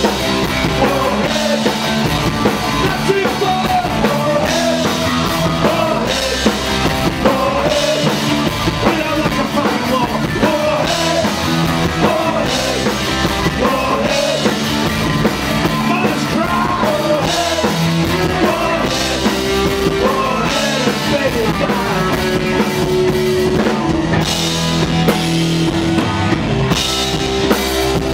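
Punk rock band playing live at full volume: electric guitar, bass and drum kit, with a singer's voice at times.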